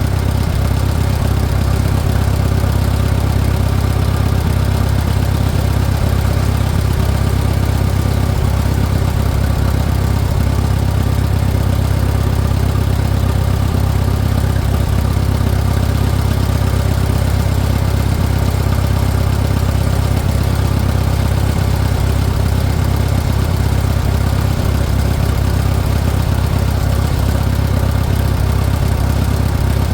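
Farmall 400 tractor's four-cylinder engine idling steadily on choke. It will not run off choke, which the owner thinks comes from an air leak at the manifold or its gasket.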